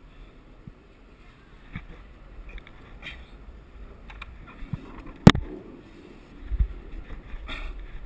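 A climber moving on the wall: small scuffs and clicks of hands, gear and the worn camera against the wall over a low rumble, with one sharp loud knock about five seconds in and a dull thud shortly after.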